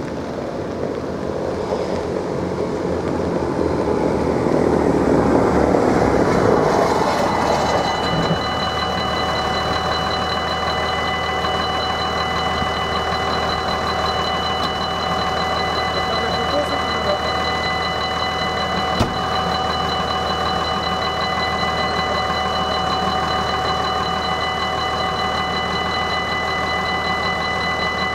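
Belgian level-crossing warning bell starting about eight seconds in and ringing steadily, the crossing's alarm for an approaching train. Before it, a rushing noise swells and fades over the first seven seconds.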